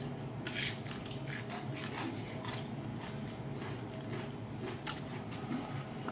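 Cooked lobster shells being cracked and picked apart by hand in a bowl: scattered short clicks and crackles, a few a second.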